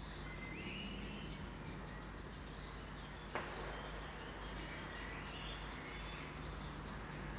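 A single small-calibre rifle shot from a shooting range cracks about three seconds in, with a short echo trailing after it. Crickets chirp steadily throughout, and a bird calls briefly near the start.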